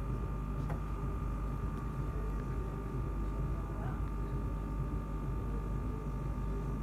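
Pressotherapy machine's air pump running steadily, a low hum with a steady higher tone over it, feeding the leg compression boots through their hoses.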